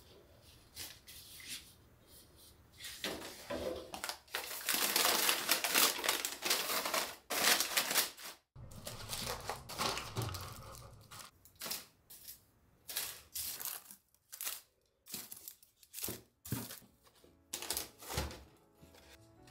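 Paper packing crinkling and rustling as it is pulled out of a new white metal mesh basket, loudest a few seconds in. After that, a run of short light knocks and taps as the wire baskets are handled and filled with onions and sweet potatoes.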